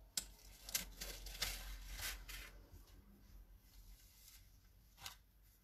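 Faint handling noise: rustling with several sharp clicks in the first two or three seconds, then a single click about five seconds in.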